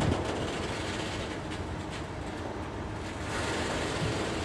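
Track-laying works train, wagons loaded with yellow track-laying machines, rolling slowly past: a steady noise of wheels running on the rails.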